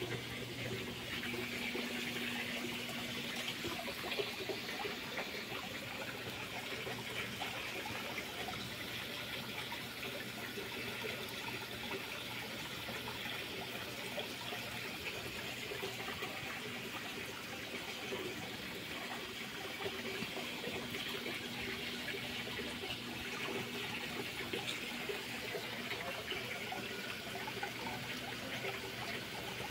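Running water trickling and splashing steadily, with a faint low hum underneath.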